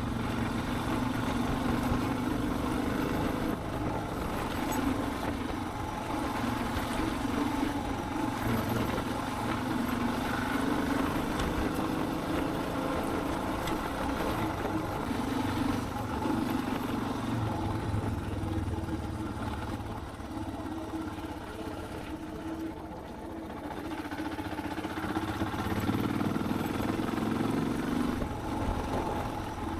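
Suzuki DR650 single-cylinder four-stroke motorcycle engine running under way, its pitch rising and falling with the throttle, and briefly quieter about two-thirds of the way through as the throttle eases off.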